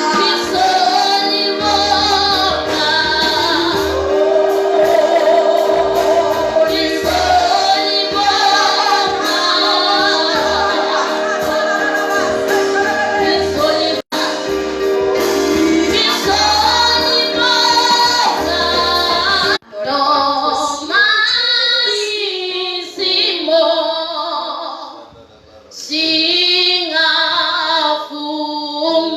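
Gospel music: female voices singing over held instrumental chords and a low bass beat. About two-thirds of the way through the backing cuts out and the voices carry on alone.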